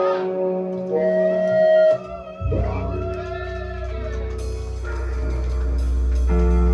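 Live band music, an instrumental passage without vocals: sustained notes with wavering, bending tones, a short drop-out, then a low drone swelling in about two and a half seconds in and growing steadily louder.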